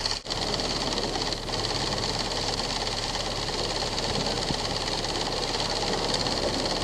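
Film projector running: a steady, fast mechanical clatter from its mechanism, with a low mains hum beneath.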